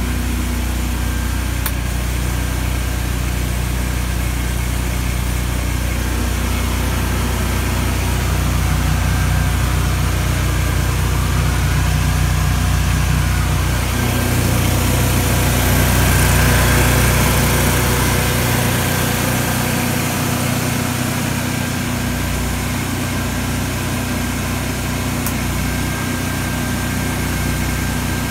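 An engine running steadily, with a broad hiss over it that swells for a few seconds in the middle.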